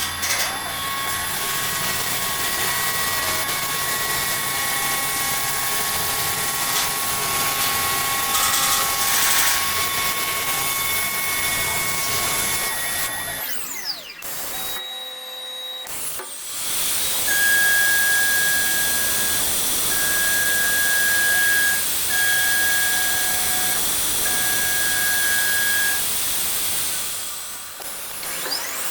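CNC wood lathe cutting wood, its spindle and cutter running with a steady high whine over a hiss of cutting. About halfway through the sound drops away briefly, then resumes with a different set of steady whine tones that stop and start several times.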